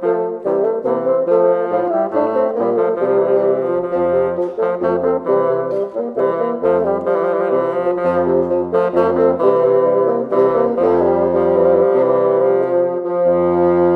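Bassoon playing a melodic passage: quick, separate notes at first, then longer low notes, ending on a long held low note.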